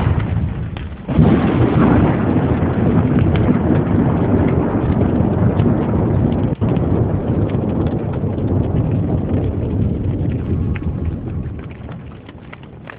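Thunderstorm sound effect: a continuous loud rumble of thunder with a hiss like rain, jumping back up sharply about a second in and fading away over the last two seconds.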